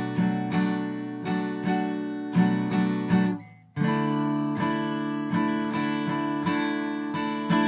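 Acoustic guitar strummed slowly in a steady pattern, each chord ringing on between strokes. About three and a half seconds in the sound is briefly cut off, then strumming resumes on a different chord.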